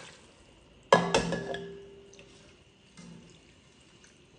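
The last of the chicken stock trickling from a glass measuring cup into an enameled cast-iron pot, then a sharp clink of kitchenware about a second in that rings on briefly, and a lighter tap near the end.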